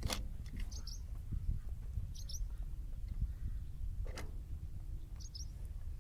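Small bird chirping in short high double notes every couple of seconds, over a steady low rumble. Two sharp clicks come about four seconds apart.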